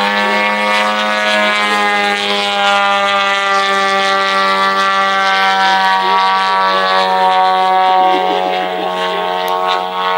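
3W 150cc gasoline engine of a giant radio-controlled Yak-55 model airplane running at high throttle in flight, a loud steady drone with a clear pitch that holds nearly constant and dips slightly near the end.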